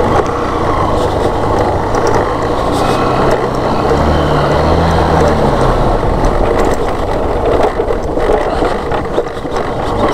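Small motorcycle engine running on a rough dirt road, heard through a helmet-mounted camera under steady wind and road noise. The engine note comes up briefly about four seconds in.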